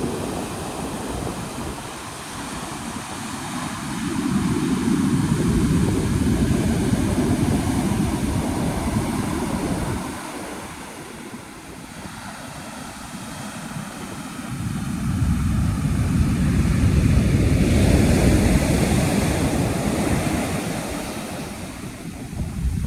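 Atlantic surf breaking on a sandy beach, a deep rushing roar that swells twice with a quieter lull between. Wind buffets the microphone, adding a low rumble.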